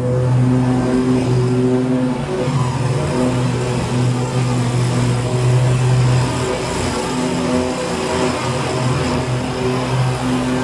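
BigDog Trooper stand-on mower's engine running steadily while mowing tall weeds, its note holding an even pitch with small swells in loudness.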